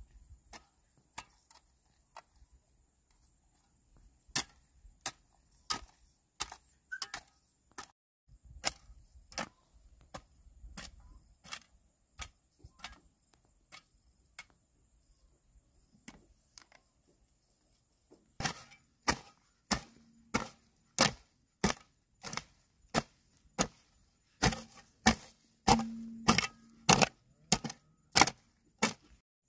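Repeated sharp chopping strikes, one or two a second, pausing briefly about two thirds of the way through and coming back louder.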